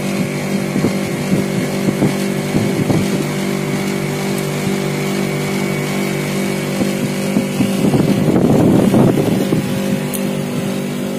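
Samsung split AC outdoor unit running, its newly fitted compressor and condenser fan humming steadily while refrigerant gas is charged, drawing about 8.2 amps at 65 to 80 psi. A louder burst of noise rises over the hum about eight seconds in.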